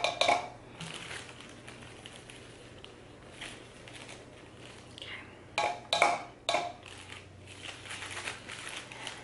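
Plastic baggie crinkling as almond flour is scooped out of it with a plastic measuring spoon and tipped into a plastic cup, with a few sharp taps of the spoon a little past halfway.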